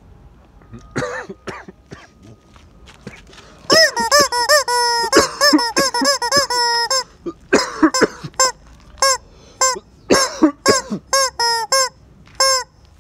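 Yellow rubber screaming chicken toy squeezed by hand again and again, giving short, shrill squawks: a fast run of them from about four seconds in, then separate squawks a little apart until near the end.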